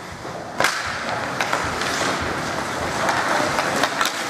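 Ice hockey faceoff and play starting: a sharp stick clack about half a second in, then skates scraping the ice and sticks clicking against the puck and each other, with scattered small knocks.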